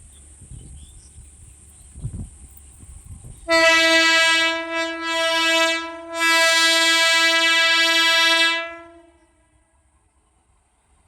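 Express train's locomotive horn sounding one long, loud blast of about five seconds, wavering in loudness twice before cutting off. A low rumble of the railway runs beneath it before the horn starts.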